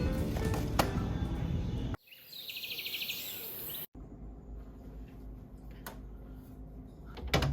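Background music that cuts off abruptly about two seconds in, followed by about two seconds of a high, rapid chirping flutter, then a cut to low steady background noise with a few faint clicks.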